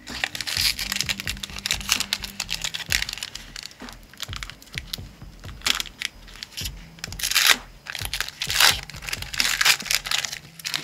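A trading card pack's wrapper being torn open and crinkled by hand, in a run of sharp, crackly rips and rustles, loudest in the second half. Background music plays underneath.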